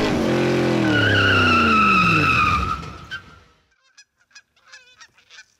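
Sound effect of a car going past, its engine pitch falling as it passes, then a few short, faint goose honks.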